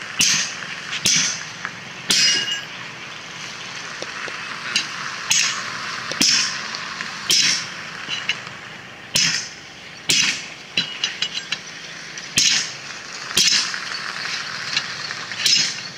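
A sledgehammer striking a steel plate wedged between a car tyre and its steel wheel rim, about a dozen sharp metallic clanks roughly one a second with a few short pauses, driving the tyre bead off the rim.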